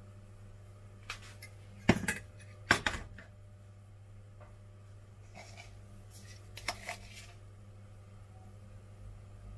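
Metal fork clinking against a dish while serving out fruit filling: two sharp knocks about a second apart, with a few lighter clicks before and later, over a faint steady hum.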